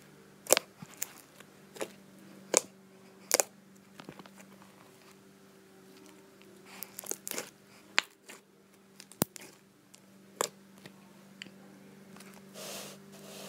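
Fluffy white-glue slime being poked and stretched by fingers in a plastic bowl. It gives sharp, irregular pops and crackles, with a quick cluster of them about seven seconds in.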